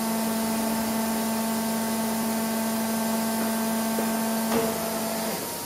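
An Eaton Leonard VB40 CNC tube bender running at idle: a steady machine hum with a hiss over it. There is a brief knock about four and a half seconds in, and the low hum stops shortly after.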